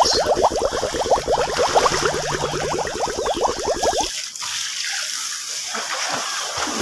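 Water gurgling in a fast, even run of bubbly plops that cuts off about four seconds in. After it comes the softer slosh and splash of children swimming in a pool.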